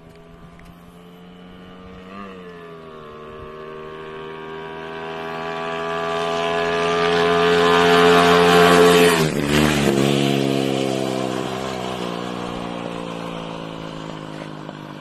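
Honda XRM single-cylinder four-stroke underbone motorcycle, tuned for racing, riding past at speed. The engine grows louder as it approaches, drops in pitch as it passes about nine seconds in, then fades as it rides away.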